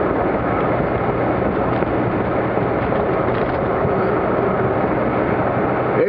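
Jeep driving on a snowy highway, heard from inside the cabin: a steady mix of engine drone, tyre and wind noise, even and unbroken throughout.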